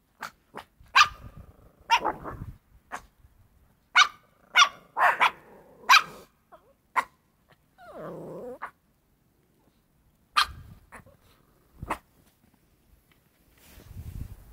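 A dog barking: about a dozen short, sharp barks in irregular bursts, with a brief growl about eight seconds in.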